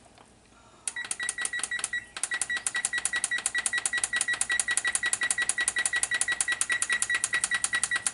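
Electric range's touch control panel beeping rapidly, about seven short beeps a second, as the cook-time button is held and the minutes count up on the display. The beeping starts about a second in.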